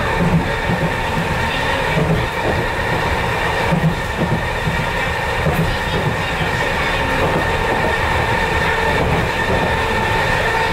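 Chikuho Electric Railroad 3000-series electric train running between stations, heard from the driver's cab. A steady whine sits over the rumble of the wheels on the rails, with a few clacks at rail joints.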